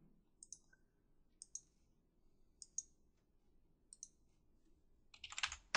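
Faint computer mouse button clicks: four short double clicks (press and release) about a second apart, then a quicker, louder run of clicks near the end.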